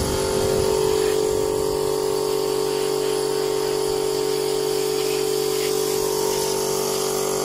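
Compressed air hissing steadily from an air hose as dust is blown out of the gaps between the wooden wall boards, over a constant hum from the running compressor.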